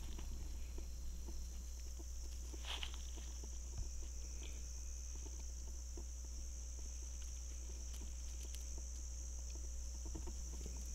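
Steady high-pitched drone of crickets in the field, with a low steady rumble beneath and faint scattered rustles and soft steps in the grass.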